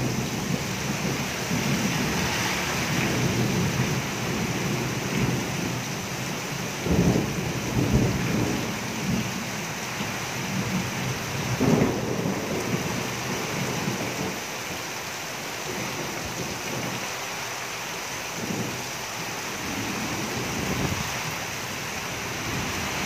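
Heavy downpour hissing steadily on a flooded street and the stall roofing. There are a few short low rumbles about 7, 8 and 12 seconds in.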